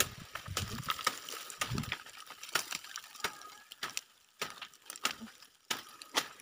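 Irregular sharp crackles and rustles of dry leaves and twigs in forest undergrowth, a dozen or more scattered snaps.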